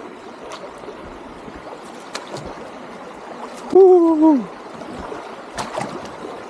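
Steady creek water with a few sharp splashes as a person wades through a shallow, icy creek. About four seconds in, he lets out a long, pained "oooh" that drops in pitch at the end.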